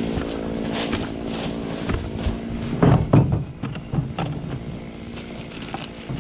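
Husqvarna 257 two-stroke chainsaw running at idle, with a short loud burst about three seconds in, after which it runs on more quietly.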